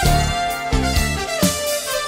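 Instrumental band music: a steady drum beat and bass notes under a held lead melody line.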